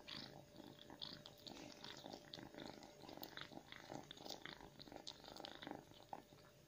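Tabby cat eating food off the floor: faint, irregular chewing and licking clicks.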